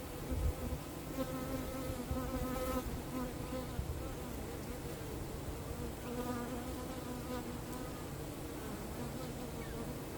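Honeybees buzzing, a pitched hum that swells and sways slightly as single bees pass close, once early and again about six seconds in, over a low steady rumble.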